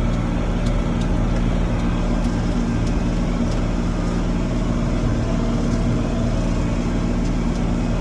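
Tractor engine running steadily at an even pitch while mowing a field, with faint light ticks through it.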